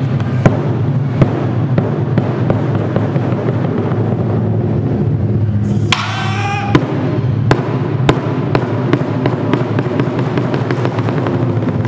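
Japanese taiko drums playing: a large barrel-shaped taiko struck with wooden sticks over a continuous low drumming rumble, with sharp strokes at a steady pulse that come faster in the second half. A short shout rings out about halfway through.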